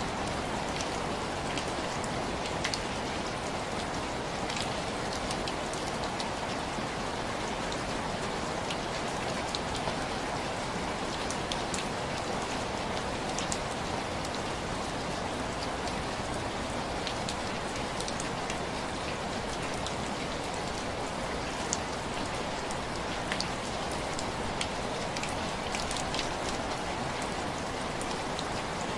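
Heavy rain falling steadily, an even rushing hiss with scattered sharp ticks throughout.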